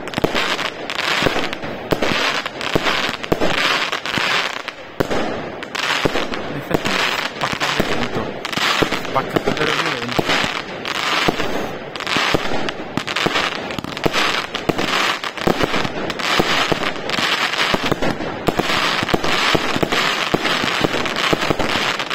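A 50-shot, 20 mm firework cake firing shot after shot in a rapid, unbroken run, about two bangs a second, with crackling from the stars bursting between the reports.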